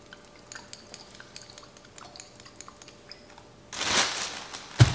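Plastic zip-top bag giving small clicks and crinkles as olive oil is poured into it from a glass bottle. About three-quarters of the way through there is a louder crinkling rustle of the bag, ending in a single thump.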